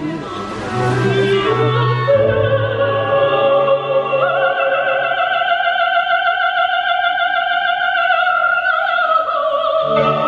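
Operatic singing with orchestra: a high voice holds one long note with vibrato from about four seconds in, then the line drops away near the end.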